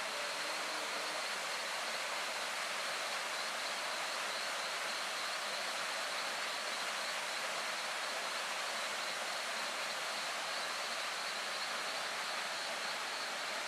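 Waterfall rushing as a steady, even roar of falling water, with a thin steady high whine above it.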